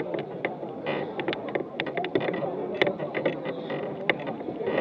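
Crowd walking in a street procession: low murmured voices and shuffling steps, with frequent sharp clicks and knocks at an irregular pace.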